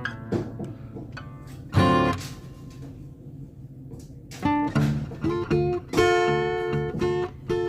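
Background music: an acoustic guitar playing picked notes and chords, with a loud strummed chord about two seconds in.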